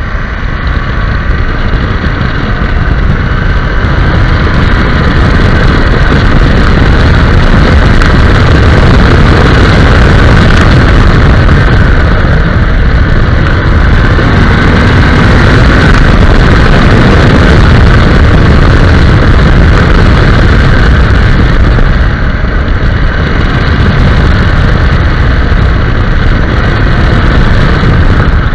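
A KTM 790 Adventure's parallel-twin engine running at road speed under heavy wind rumble on the camera microphone. It gets louder over the first few seconds as the bike speeds up, then holds steady.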